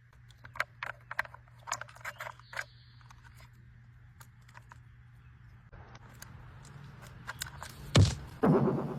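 Scattered sharp clicks and taps of crows' beaks pecking at and shifting the pieces of a plastic slide puzzle, thickest in the first three seconds, over a steady low hum. Near the end come two louder voice-like calls.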